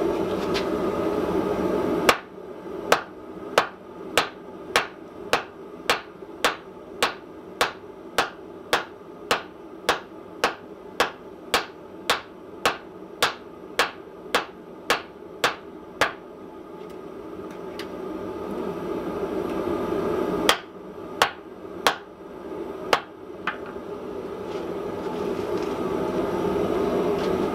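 Hammer blows on a glowing steel bar resting on a small hand-made stump anvil of wrought iron faced with spring steel, about two a second with a short metallic ring after each, then a pause and four more blows near the end. A steady roar is loud for the first two seconds, drops away when the hammering begins, and builds again in the pause and toward the end.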